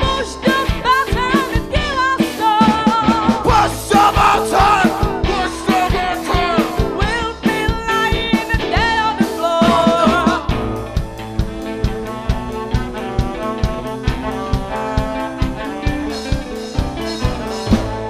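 Live band playing an upbeat song: singers and saxophone over drums, electric guitar and keyboard, with a steady drum beat. About ten seconds in the singing stops and the band carries on instrumentally.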